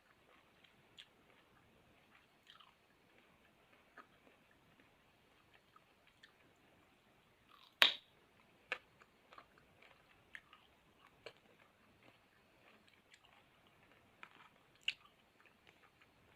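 A person chewing fruit at close range, with scattered small crunches and mouth clicks. One sharp, much louder crunch of a bite comes about eight seconds in, and smaller ones follow near nine and fifteen seconds.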